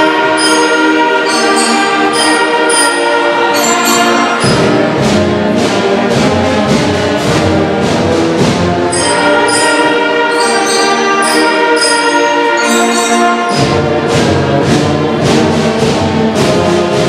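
School band playing a sustained, brass-led piece in full chords, with low bass notes coming in about four seconds in, dropping out briefly, and returning near the end.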